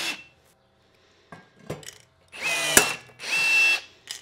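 Cordless rivet gun setting a small blind rivet: a short motor whine with a few light clicks as the rivet is fitted, then the motor runs with a slightly falling pitch as it pulls the mandrel, which snaps off with a sharp crack about two-thirds of the way in. The motor then runs again briefly at a steady pitch as the tool resets.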